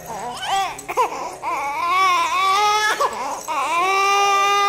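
Baby crying: a few short, rising-and-falling whimpers, then two long, high-pitched wails, the second starting a little past halfway after a brief catch of breath.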